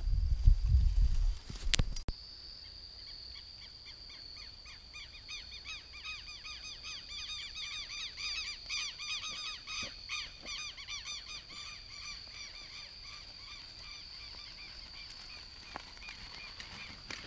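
Rural dusk ambience. A steady high-pitched insect drone runs throughout. From about four seconds in, a flock of birds gives rapid, repeated calls that thin out after about twelve seconds. A low rumble fills the first two seconds.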